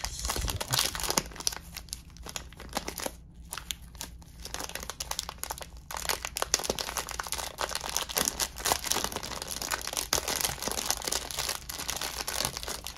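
Clear plastic wrap crinkling and tearing as it is peeled off a stack of plastic trading-card holders, with a brief lull about three seconds in.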